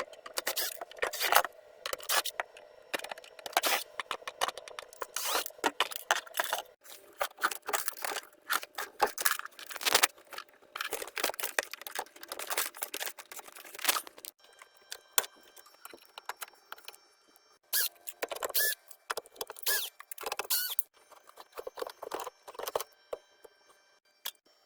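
Irregular clicks, scrapes and rattles of hard objects being handled, sometimes close together, with a few short pauses.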